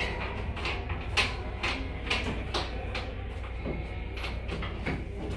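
Pool water splashing and sloshing as swimmers move through it, in short irregular bursts over a steady low hum.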